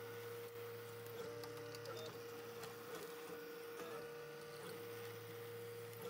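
Ultimaker 3D printer running a print: its stepper motors whine in steady tones that change pitch every second or so as the print head changes moves, over a low hum.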